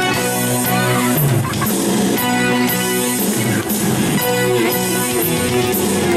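Instrumental pop music with strummed guitar and bass, played loud over a public-address speaker.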